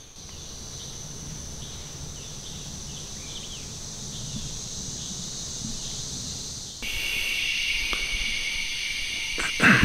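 Steady drone of summer woodland insects with a few short bird chirps. About seven seconds in it changes abruptly to a louder dusk insect chorus of several steady high trills.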